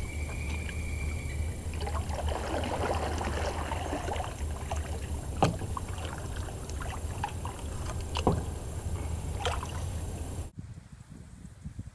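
Fiberglass canoe being paddled: water swishing with the paddle strokes and a few sharp knocks, over a steady low rumble. The sound cuts off abruptly near the end.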